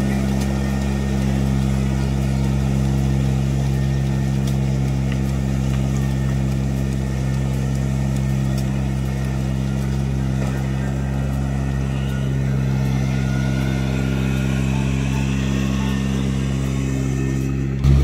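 Riding rice transplanter's small engine running steadily as it drives through a flooded paddy, a constant low hum. It gets suddenly louder at the very end.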